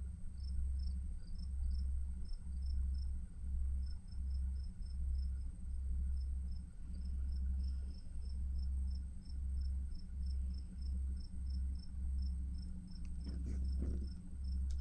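A cricket chirping steadily, a few short high chirps a second, over a low hum that swells and breaks off about once a second. Light handling of paper cards is heard near the end.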